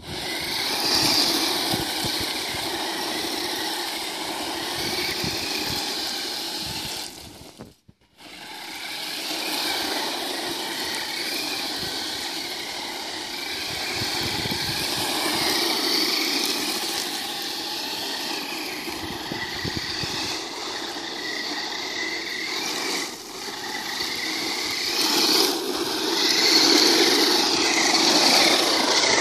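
Himoto Bowie 1:10 electric RC monster truck's motor and gears whining, rising and falling in pitch as it accelerates and drifts, with its tyres scrabbling over loose gravel. The sound cuts out for a moment about eight seconds in.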